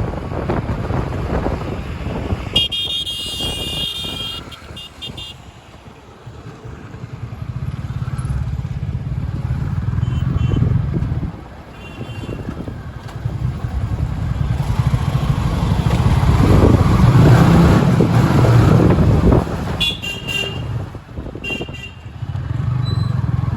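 Busy Indian road traffic: engines of passing vehicles swelling and fading, with repeated horn honks. There is a long horn blast about three seconds in, short toots in the middle, and a few more honks near the end.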